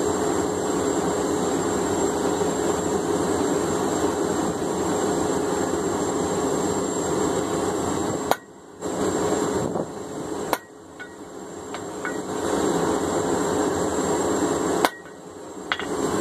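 Hammer blows driving steel touch-mark stamps into a hot hammer head: three sharp metallic strikes a couple of seconds apart in the second half, with a lighter tap or two between them. Under them runs the steady rushing noise of the forge.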